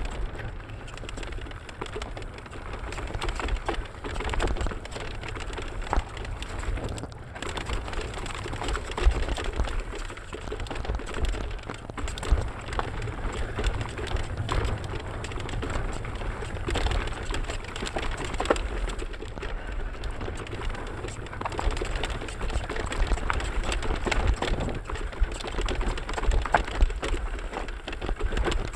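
Mountain bike riding down a dirt and stony singletrack: tyres crunching over the trail, and the bike rattling with frequent small clicks and knocks. Under it runs a steady rumble of wind buffeting on the camera microphone.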